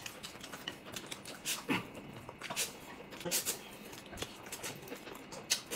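Close-up eating sounds: noodles being slurped and chewed, a string of short, irregular mouth noises.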